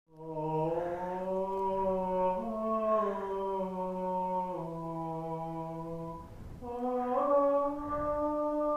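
A man singing long, drawn-out notes in a mock-operatic style, one phrase of slowly stepping pitches, a short breath, then a second phrase.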